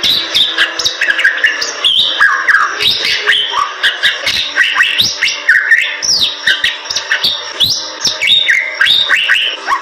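Bali myna singing: a fast, unbroken run of sharp clicks, harsh chattering notes and short whistles that sweep up and down in pitch.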